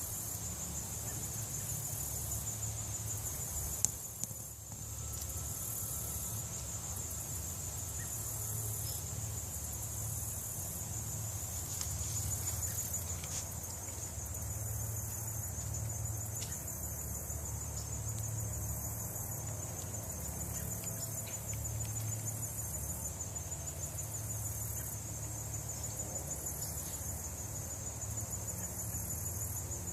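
Crickets trilling continuously in a high, steady chorus, with a second high insect call pulsing at regular intervals above it.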